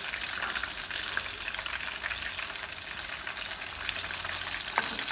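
Floured pieces frying in hot oil: a steady sizzle with a constant crackle.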